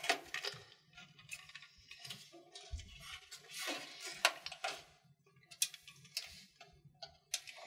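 Scattered light clicks, taps and scrapes of a micro ATX motherboard being shifted and pressed into place against a PC case's metal motherboard tray and rear I/O plate, with a dull knock about three seconds in.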